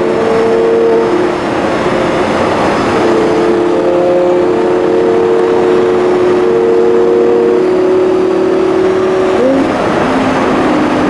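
Lamborghini Gallardo's V10 engine heard from inside the cabin at a steady cruise, holding a constant drone over tyre and road noise. Near the end the engine note drops to a lower pitch.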